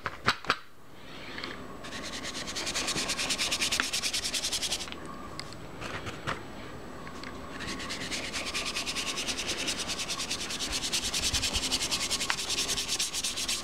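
A pigment applicator scrubbed rapidly back and forth through dry pigment powder, a fast, even, scratchy rubbing of several strokes a second. It comes in two bouts: one from about two seconds in to about five, then after a pause a longer one starting at about seven and a half seconds.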